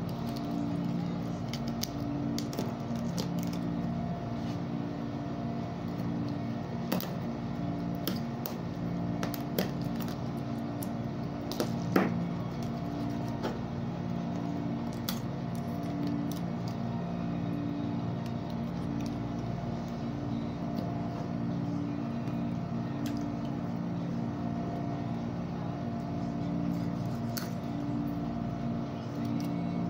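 Kitchen knife clicking and scraping against a cutting board while gutting a small ponyfish: scattered sharp clicks, the sharpest about twelve seconds in. Under it runs a steady machine hum.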